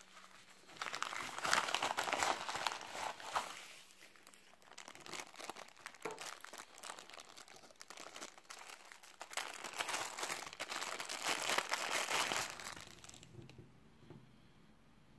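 Plastic packaging crinkling and rustling in the hands: a bubble-lined poly mailer being opened, then a clear plastic bag. There are two louder spells of crackling, and it dies away near the end.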